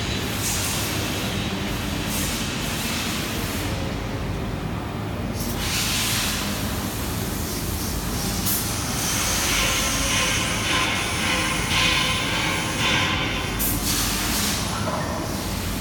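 Pneumatic manipulator with a tube gripper at work: compressed air hisses from it several times in short bursts, the longest lasting a few seconds past the middle, over a steady low factory hum.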